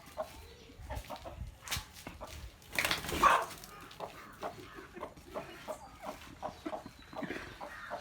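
A chicken clucking in short, repeated calls, with a loud, harsh burst of noise about three seconds in.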